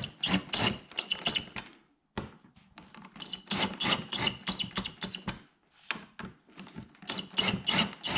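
Cordless drill driving screws into a plastic splitter winglet in several bursts, with rapid clicking. Its clutch is set low so it slips instead of fully tightening the screws, to avoid stripping them or cracking the plastic.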